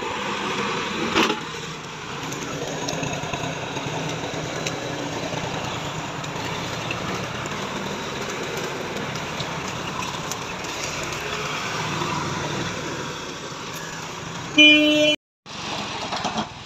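Massey Ferguson tractor engine running steadily. About fifteen seconds in, a short, loud horn toot sounds and cuts off abruptly.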